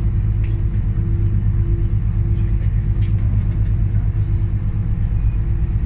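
Canal tour boat's engine running with a steady low drone, heard from inside the glass-roofed passenger cabin.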